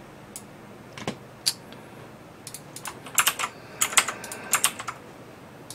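Typing on a computer keyboard: a few separate key clicks, then a quicker flurry of keystrokes from about two and a half seconds in.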